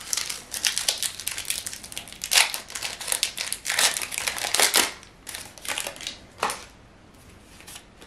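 Foil Pokémon TCG booster pack wrapper crinkling as it is torn open and handled: a dense run of crackles for about five seconds, thinning to a few scattered crackles.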